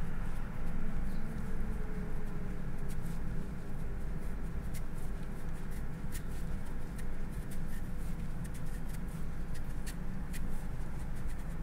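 Small crisp ticks and scrapes of a knife blade shaving a thin continuous sheet off a daikon radish (katsuramuki peeling), scattered irregularly over a steady low hum.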